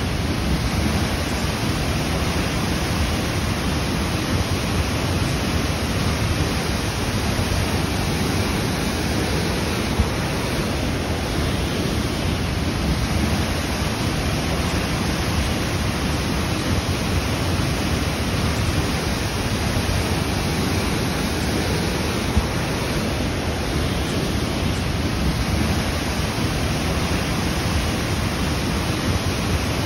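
A waterfall rushing steadily, a field recording of falling water.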